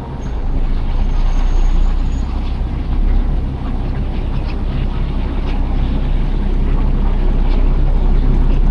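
A vehicle engine running with a steady low hum, over street noise.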